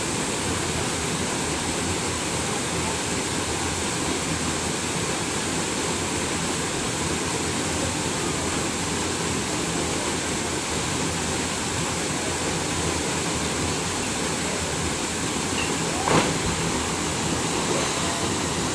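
Steady rushing of Tumalog Falls, water pouring down the rock face into the pool. A brief sharp sound stands out about sixteen seconds in.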